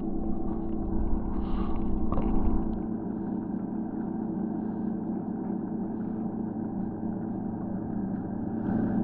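Boat's outboard motor running steadily at low speed, a constant even drone, a little louder for the first couple of seconds.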